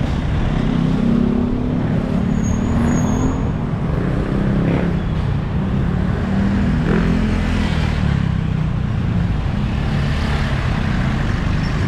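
Street traffic: vehicle and motorcycle engines running close by as a steady, loud low rumble, with vehicles passing.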